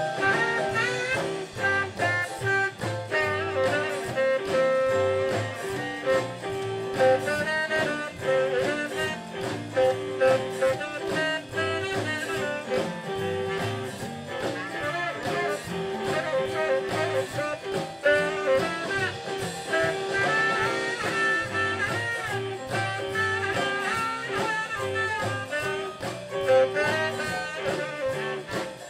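Live blues band playing an instrumental break, a lead line bending and soloing over a steady rhythm section.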